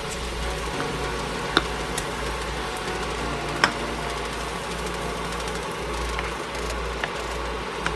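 Butter and minced garlic sizzling in a nonstick wok, over a steady low hum, with a few sharp clicks of a spatula against the pan, the loudest about three and a half seconds in.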